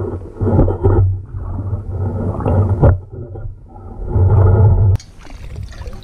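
Muffled underwater sloshing and churning as a sand scoop is worked into a murky pond bottom, rising and falling in surges. About five seconds in, the sound suddenly turns clearer and hissier as the microphone comes up out of the water, with water splashing and dripping around the scoop.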